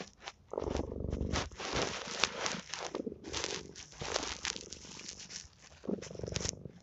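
Domestic cat purring close to the microphone, coming in swells about a second or so long with short gaps between them, with small clicks and crackles over the purr.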